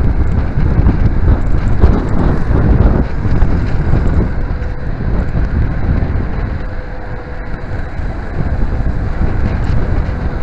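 Wind buffeting the microphone of a handlebar-mounted action camera on a moving bicycle, a heavy low rumbling rush. It eases a little about two-thirds of the way through and then picks up again.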